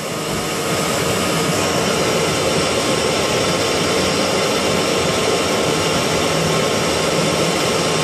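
Steam boiler's burner running steadily, a constant rushing noise with a faint hum in it, as the boiler builds steam pressure.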